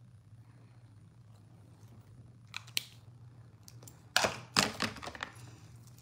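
Makeup items being handled and picked up, with two sharp clicks followed by a brief burst of louder clattering and rustling about four seconds in, as a red lip pencil is picked up. A low steady hum runs underneath.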